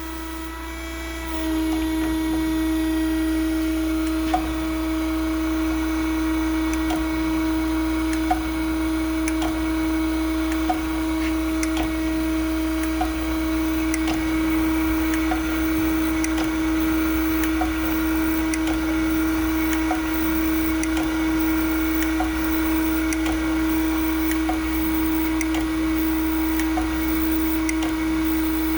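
Harig 618 automatic surface grinder running under power feed: a steady motor and spindle hum with a whine above it, and faint light ticks every second or two. The sound steps up about a second in, and the wheel is set a half-thousandth down for a light grinding pass.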